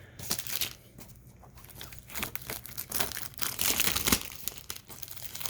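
Plastic wrapping on a DVD case being crinkled and torn, an irregular crackle with a sharp click about four seconds in.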